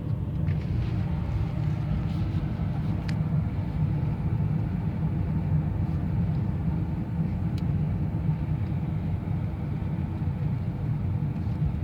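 Car driving along a road, a steady low rumble of engine and road noise.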